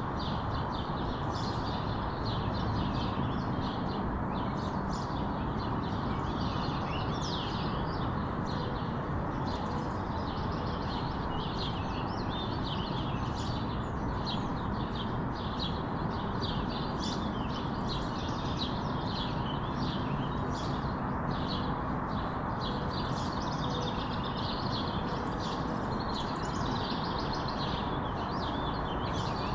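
Many small songbirds chirping and twittering continuously, with rapid overlapping high calls, over a steady low background hum of ambient noise.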